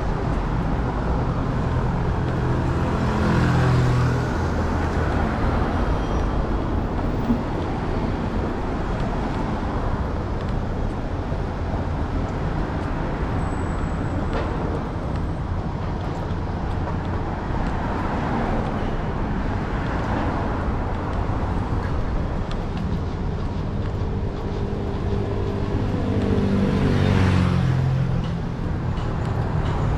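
Steady road traffic, with two motor vehicles passing close by, one about three seconds in and one near the end, the second one's engine note dropping in pitch as it goes past.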